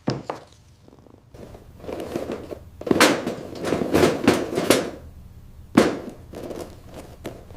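A burst of sharp knocks and clatter, densest from about three to five seconds in, with one loud knock near six seconds.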